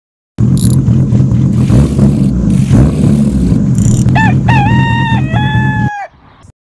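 Intro sound effects: a loud, rough low rumble starts suddenly, and in its last two seconds a rooster crows once, cock-a-doodle-doo, before everything cuts off.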